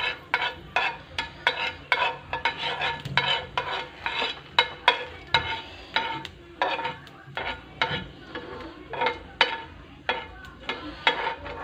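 A steel spoon stirring panch phoron seeds in hot oil in a non-stick frying pan. It clicks and scrapes against the pan about two or three times a second, over a faint sizzle of the frying spices.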